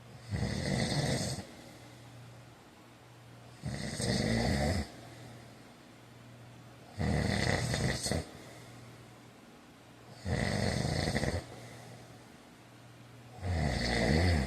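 A man snoring in a steady rhythm: five snores, each about a second long, coming roughly every three and a half seconds, with quieter breathing between them.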